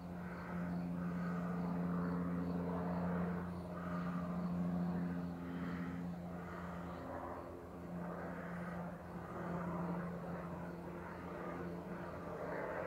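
Helicopter flying over: a steady low drone from its engine and rotor that swells and eases a little in loudness.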